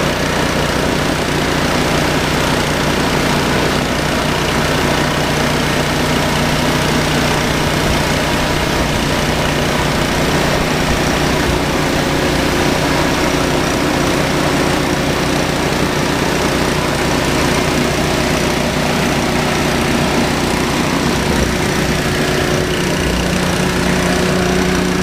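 Echo PW3600 gas pressure washer running steadily under load, with the hiss of water spraying from a 15-inch surface cleaner as it scrubs concrete.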